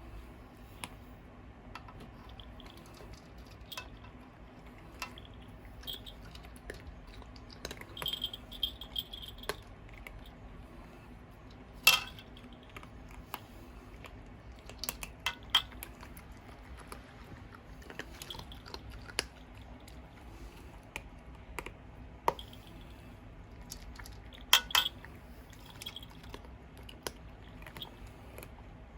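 A pet crunching dry kibble, in scattered short crunches and clicks with a few sharper ones, over the steady low hum of a ventilation fan.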